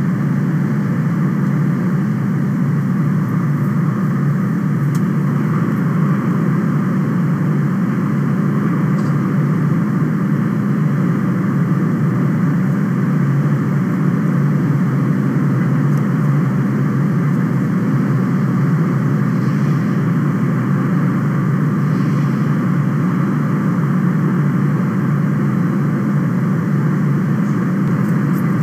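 Steady, unchanging low machine hum and rush of rooftop ventilation equipment beside the nest box.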